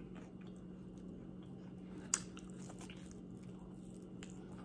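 Close-miked eating sounds of a barbecue rib being chewed, with faint wet clicks and one sharper smack about two seconds in, then biting into the meat on the bone near the end. A low steady hum sits underneath.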